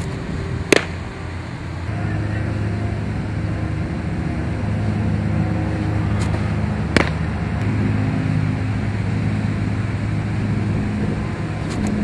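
A baseball popping sharply into a catcher's leather mitt twice, about six seconds apart, each at the end of a pitch. Under it, from about two seconds in, a vehicle engine idles with a steady low hum.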